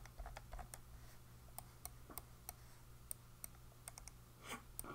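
Faint clicking of a computer mouse, a few sharp clicks a second, over a low steady hum.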